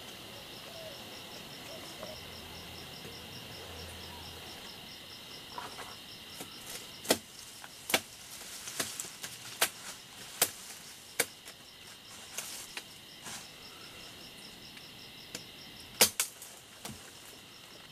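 Steady insect chirping, with a run of about a dozen sharp wooden snaps and cracks from about a third of the way in, as a man climbs through the branches of a tree.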